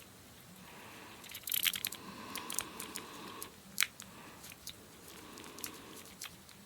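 Small clicks and scrapes of a Zippo lighter insert being handled as the flint spring and its screw are put back in, with a cluster of clicks about one and a half seconds in and one sharp click near the four-second mark.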